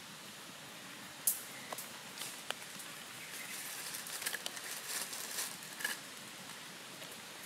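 Whole raw pig hearts being pushed and slid along a bamboo skewer by hand: scattered clicks and crackles, busiest a little past the middle, over a steady background hiss.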